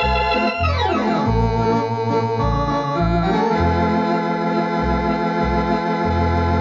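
Thomas electronic organ playing sustained chords over a line of separate low bass pedal notes, with the whole sound sliding down in pitch about a second in. It is played back from a restored early-1970s demonstration cassette that has wow and flutter.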